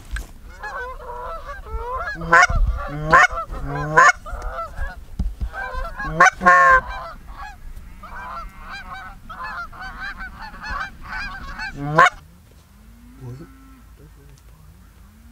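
Goose honking and cackling: many short overlapping honks, with several loud, sharp honks close by, stopping about twelve seconds in.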